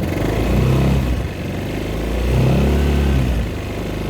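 Royal Alloy TG300S scooter's single-cylinder four-stroke engine, standard exhaust, blipped twice on the stand with the rear wheel spinning free: each rev rises smoothly, holds briefly, then falls back toward idle. Kept to light revs.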